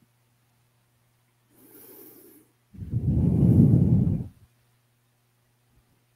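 A person breathes out loudly, close to the microphone, for about a second and a half. A fainter breath comes just before it.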